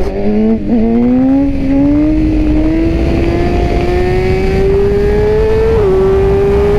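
BMW S1000RR's inline-four engine pulling hard under full throttle in second gear to lift the front wheel into a wheelie. The engine note climbs steadily for about five seconds, then dips slightly near the end, with wind rushing past the helmet microphone.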